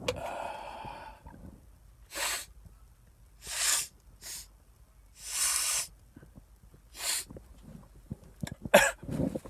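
A man sniffs hard through his nose several times, drawing cayenne pepper up from a Q-tip, then lets out a sudden, sharp sneeze near the end, brought on by the pepper.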